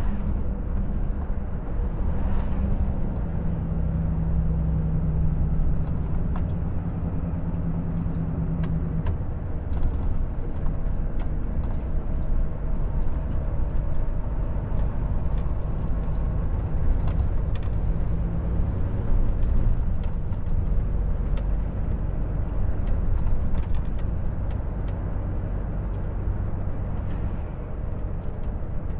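Volvo FH 460 truck on the move: the steady drone of its 13-litre six-cylinder diesel engine with continuous road rumble and occasional faint ticks.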